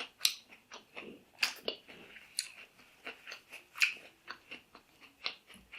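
A person chewing crunchy fried fish and green mango salad close to the microphone: irregular crisp crunches and mouth clicks, about two or three a second.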